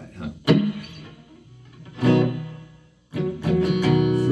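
Plucked guitar playing an intro: two single notes struck and left ringing, then steady picking from about three seconds in.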